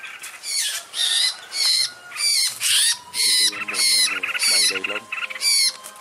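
Red-whiskered bulbul calling over and over, loud short chirpy phrases at about two a second. A lower, rougher chatter runs underneath for a second or two in the middle.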